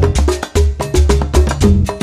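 Background music: an upbeat instrumental passage with a quick, even percussive rhythm over a strong bass line.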